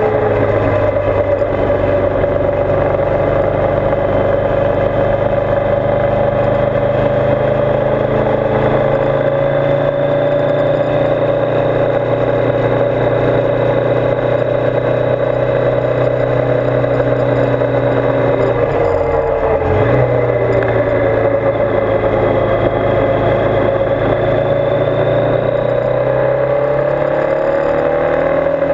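Motorcycle engine running steadily at cruising speed, heard from a camera mounted on the bike, with road and wind noise. About 19 seconds in the engine note drops briefly and climbs back up.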